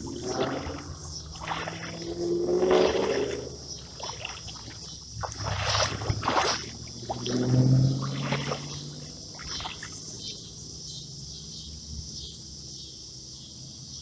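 Water sloshing and splashing around legs wading through a shallow creek, in irregular surges over the first nine seconds or so, then easing off. A steady insect chorus, crickets, runs high underneath throughout.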